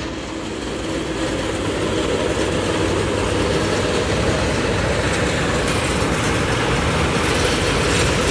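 Self-propelled Vishal combine harvester at work cutting ripe paddy rice: its diesel engine and cutting and threshing machinery run steadily, slowly growing louder.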